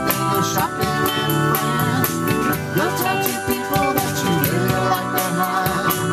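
Instrumental music with drums and guitar, a steady beat, country-leaning.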